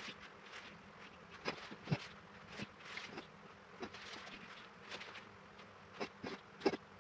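A buzzing insect, with scattered soft ticks and taps at irregular intervals.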